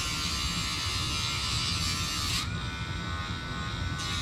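Dremel rotary tool running at a steady whine while its cutting disc grinds a groove into a pushrod, with a hissy grinding sound. About two and a half seconds in the disc comes off the work and the pitch dips and recovers; the grinding starts again briefly near the end.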